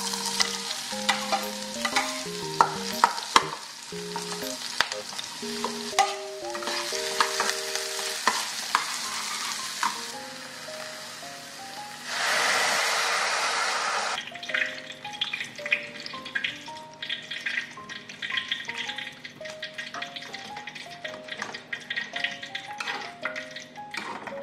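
Diced onion frying and sizzling in a pan while a spatula scrapes and taps against it. About twelve seconds in there is a sudden loud rush lasting about two seconds as broth with carrot and potato chunks is poured from a saucepan into the hot pan, followed by quieter stirring clicks. Soft background music plays underneath.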